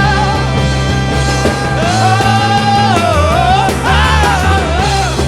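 A rock band playing live: bass, drums and guitars, with a melody line that bends and wavers in pitch over the last few seconds.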